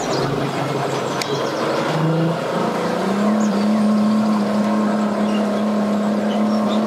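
Bass boat's outboard motor revving up to power the boat onto its submerged trailer, its pitch climbing about two seconds in and then holding steady and higher, with the propeller churning the water.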